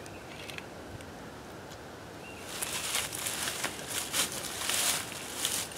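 Footsteps crunching through dry fallen leaves, a run of irregular crackling steps starting about halfway through.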